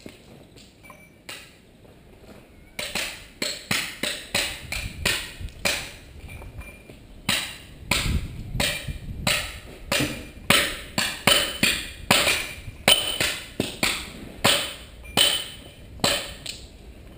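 Hammer striking a chisel on a stone block: sharp, ringing blows about two to three a second, starting about three seconds in and running on until near the end.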